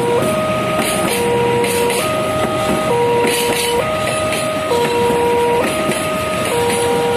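Railway level-crossing warning alarm sounding a two-tone electronic signal, switching between a low and a high note about once a second, over the rumble and wheel clatter of passenger coaches running past on the rails.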